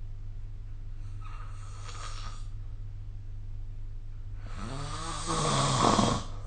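A sleeping person snoring. A faint breath comes about a second in, then about four and a half seconds in comes one loud snore with a pitched, buzzing tone, lasting nearly two seconds. A steady low hum runs underneath throughout.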